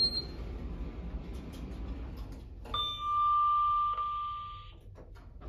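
Stannah passenger lift travelling with a low, steady hum after a short high beep at the start; about 2.7 s in, the arrival chime sounds one long ding, held for about two seconds, as the car reaches the floor and the doors open.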